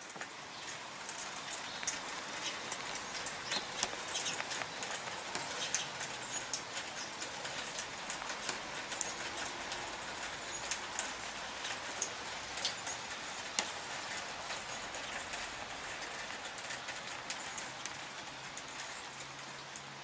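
Steady rain falling, with many separate drops pattering close by over a constant hiss.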